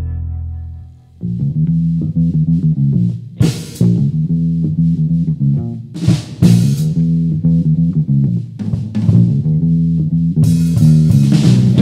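Rock band playing an instrumental intro. An electric bass riff starts about a second in over the drum kit, with cymbal crashes, and the guitars and cymbals fill out the sound near the end.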